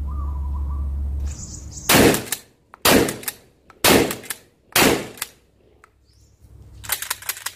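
Derya Carina CR-201 12-gauge pump-action shotgun fired four times, about a second apart, each a loud sharp blast. Near the end comes a quick string of fainter sharp cracks.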